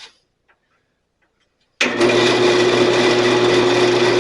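Near silence, then about two seconds in a Sears Craftsman 12-inch bandsaw is switched on: its motor and blade start abruptly and run steadily with a constant hum and a steady whine. This is the first test run after new wheel tires have been fitted.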